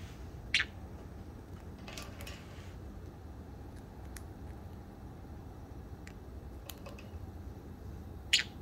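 Small parrot in its cage giving two short, sharp chirps, about half a second in and near the end, with faint scattered clicks in between from its beak and feet on the cage wire and the cabbage.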